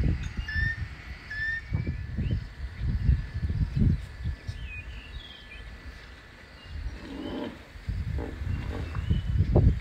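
Hippos calling in repeated deep grunting pulses, protesting at elephants in the river beside them. Small birds chirp over it.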